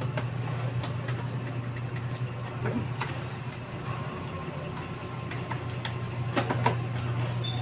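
Steady low hum throughout, with a few faint clicks as fingers press the power button and plastic top of an Epson printer that is not powering on.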